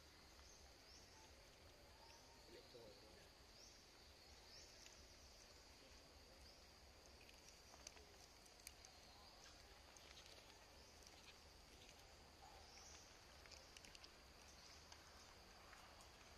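Near silence: faint forest ambience with a steady high insect drone, short chirps recurring about once a second, and a few faint clicks.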